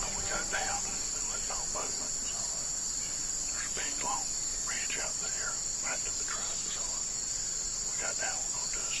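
Steady high-pitched chorus of insects in summer woodland, with scattered short chirps over it.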